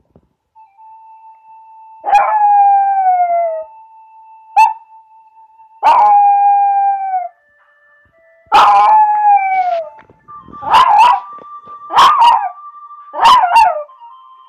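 A small black-and-tan dog howling to a steady held tone: seven howls, each sliding down in pitch. The first four are long, and the last three are shorter and come in quicker succession.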